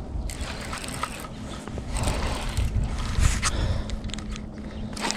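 Fishing reel's mechanism clicking and ratcheting as line is worked on a striper rod.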